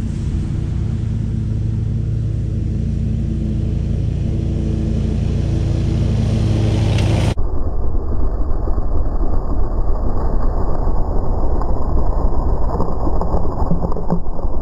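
Hustler X-One zero-turn mower's engine running steadily while mowing tall pasture grass. About seven seconds in, the sound cuts abruptly to a rougher, noisier rumble.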